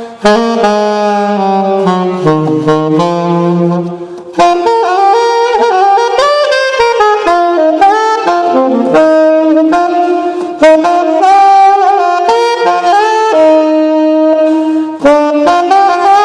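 1927 gold-plated Martin saxophone played solo through a Gerber mouthpiece, a melodic line of held and moving notes in phrases with short breaths between them.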